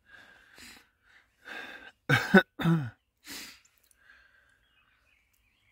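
A man crying: shaky, breathy sniffs, then two short loud sobs with falling pitch just after two seconds in, and another breath after them.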